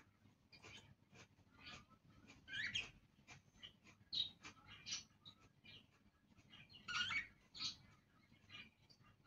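Budgerigars chattering softly: a scatter of short, high chirps, with louder bursts about three seconds in and again about seven seconds in.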